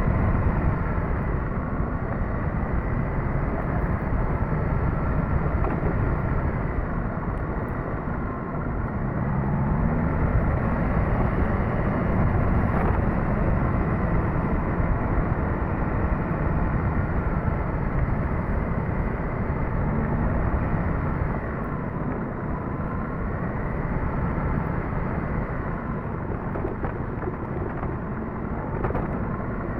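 Suzuki GSX-S1000GT's inline-four engine running under way, its pitch rising and falling a few times with the throttle.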